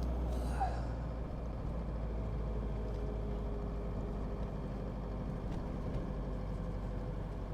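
Inside a diesel pickup's cab while driving: a steady low drone of engine and road noise.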